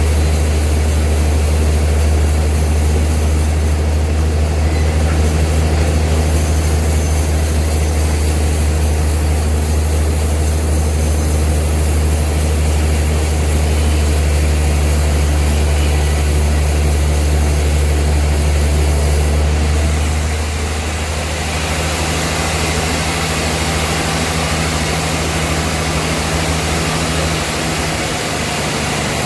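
Old sawmill's machinery running with a steady, loud low engine drone. About twenty seconds in, the deep drone drops off a little and a hissing noise grows louder.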